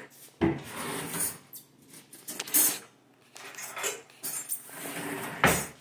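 Rummaging in a kitchen cutlery drawer for a fork: silverware clattering and the drawer knocking, in about five separate clatters, the loudest near the end.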